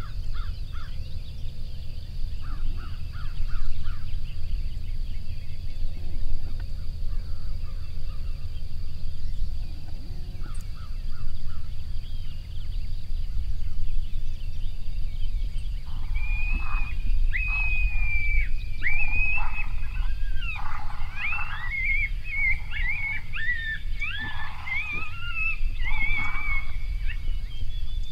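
Wind rumbling on the microphone throughout. About halfway through, coyotes break into a chorus of yips and wavering howls, many sharp falling cries overlapping, which dies away near the end; a few short distant calls come earlier.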